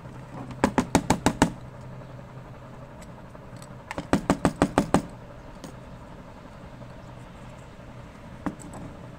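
Small metal tin knocked in two quick runs of about six knocks each, one about a second in and one about four seconds in, while its lid is worked open, then one more knock near the end.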